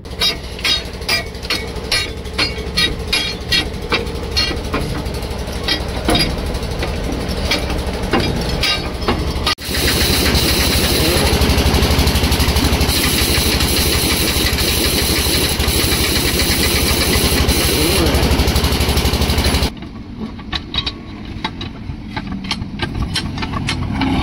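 Work on a punctured truck tyre: a rapid, regular series of knocks, two to three a second, for about nine seconds. Then a loud, steady machine noise with a low throb and a hiss starts suddenly and cuts off abruptly after about ten seconds, followed by more scattered knocks.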